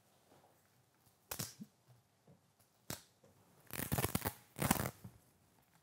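Stiff paper and card rustling in a few short bursts, the loudest cluster near the end, as a strip of a large paper banana prop is peeled back and the prop is handled.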